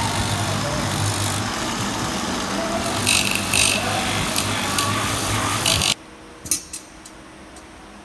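Handheld die grinder with a small cutoff disc running and cutting into a truck tyre's damaged area, throwing sparks off the exposed steel cords, with harsher scraping bursts as the disc bites between about three and six seconds in. The sound cuts off suddenly about six seconds in, leaving a quiet background with a couple of small clicks.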